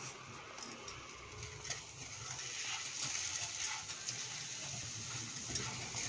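Washed basmati rice sizzling in hot ghee as it is tipped from a steel strainer into a nonstick pan and stirred with a silicone spatula, with light taps and scrapes. The sizzle grows louder about halfway through as the rice is spread and stirred.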